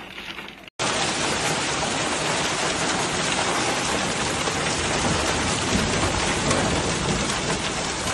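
Hail falling thickly on a car and the ground around it: a dense, steady patter. It comes in suddenly and louder a little under a second in, after a short, quieter stretch of hail.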